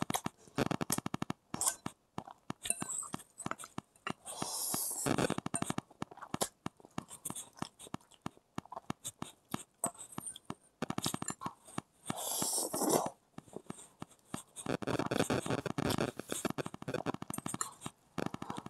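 Close-up eating sounds of a person eating instant noodles: wet, smacking chewing with rapid runs of mouth clicks and a few noisy slurps of noodles, the biggest about 4–5 s and 12–13 s in.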